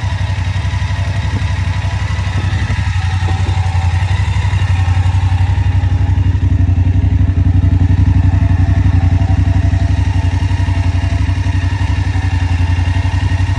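BMW motorcycle engine running steadily, a deep even note with a fast pulsing beat.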